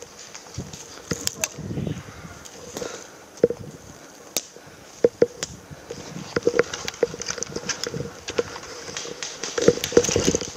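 Footsteps crunching and crackling on dry leaf litter and twigs, with irregular clicks and rustles of clothing and gear, and a louder flurry near the end as the wearer moves quickly.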